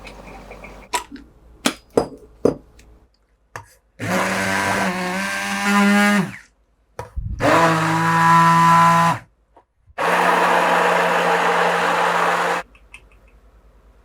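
A stick blender is run in three short bursts, each about two seconds, its motor pitch wavering as it meets the food, after a few light clicks and knocks.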